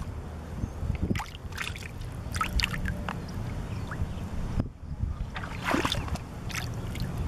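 Shallow water sloshing and splashing at the shoreline in several short bursts, over a steady wind rumble on the microphone.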